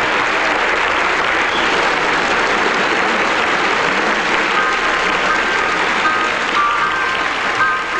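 Studio audience applauding. About halfway through, the band starts playing, short repeated high notes sounding over the clapping.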